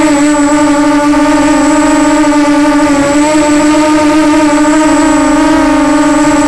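Walkera Runner 250 quadcopter's brushless motors and propellers buzzing steadily in flight, the pitch wavering a little, with a thin steady high whine above it.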